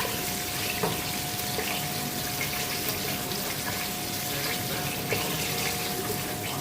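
Onions, green peppers and garlic sizzling in hot oil in a pot: a steady hiss with a few light clicks.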